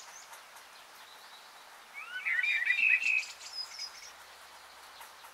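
Birds chirping over a faint outdoor hiss, with a short flurry of quick chirps about two seconds in.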